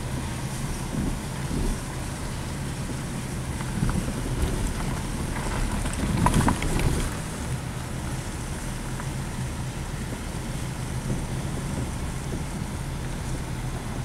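Car moving slowly, heard from inside the cabin: a steady low engine and road rumble, with a brief louder swell about six seconds in.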